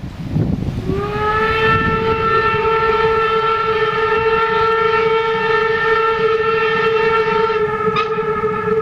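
Steam whistle of class 52 steam locomotive 52 1360 blown in one long, steady blast that starts about a second in, with a slight upward swoop as it opens. Before the whistle, a low rumble of the running train.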